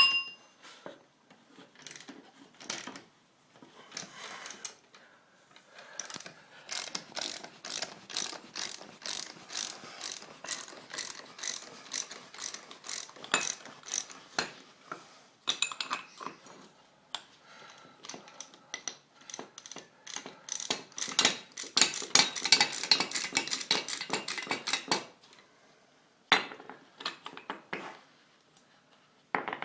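Ratchet wrench clicking in long runs of quick clicks, several a second, as it cranks the screw of a bushing press against an upper control arm bushing. The clicking is densest a little past the middle and stops shortly before the end.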